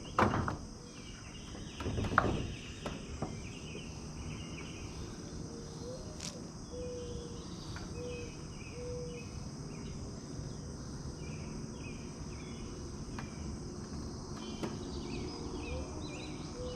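Steady chorus of crickets and other insects, with short calls repeating over it. Two knocks stand out in the first couple of seconds.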